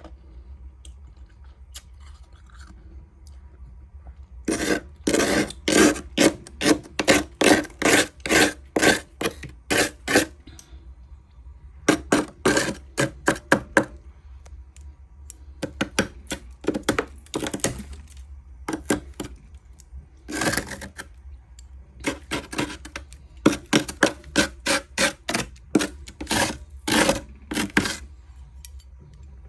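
Freezer frost being crunched in runs of crisp strokes, about two a second, with short pauses between the runs.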